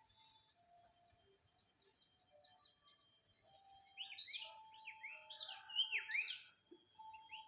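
Birds chirping: faint scattered calls, then a run of quick, sweeping high notes, loudest from about four seconds in.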